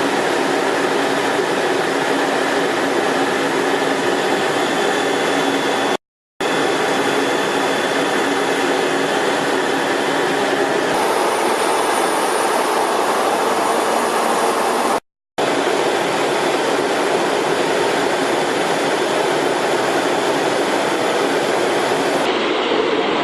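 Jet engines running on an aircraft carrier's flight deck: a loud, steady noise in three stretches, each cut off abruptly by a brief silence about 6 and 15 seconds in.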